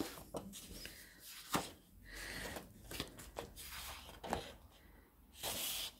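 Sheets of metallic-embossed designer paper being handled and turned: soft rustling with scattered light taps, and a louder sliding rustle of paper near the end.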